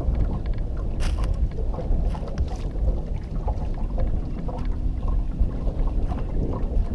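Steady wind buffeting the microphone on an open boat on the water, a low rumbling rush, with a few brief clicks about a second and two seconds in.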